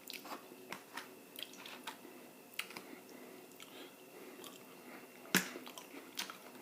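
A person chewing a mouthful of hot water cornbread and collard greens close to the microphone: soft, irregular wet mouth clicks and smacks. One sharper click comes about five seconds in.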